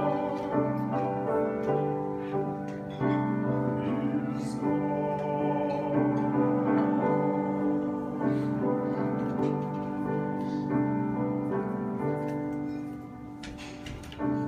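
Piano playing the slow chordal postlude of an art song, the sustained chords fading away near the end.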